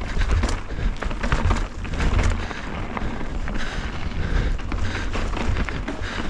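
Mountain bike rolling over a rough dirt and rock trail: tyre crunch with many quick clicks and rattles from the bike, over a low, gusting wind rumble.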